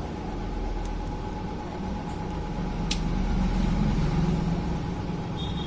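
Steady machine hum, with a single light click about three seconds in and a short high beep near the end.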